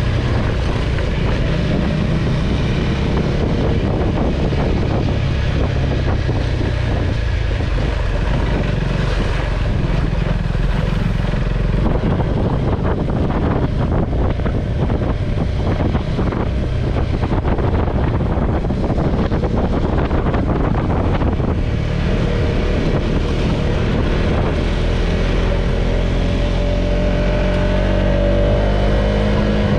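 KTM 390 Adventure's single-cylinder engine running as the motorcycle is ridden, mixed with heavy wind noise on the microphone. Near the end the engine pitch rises as it accelerates.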